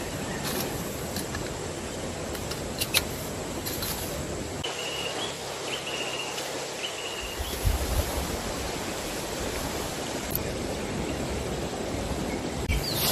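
Steady rush of a river flowing. A few sharp clicks of metal tent poles being handled come in the first few seconds, and three short high chirps come in the middle.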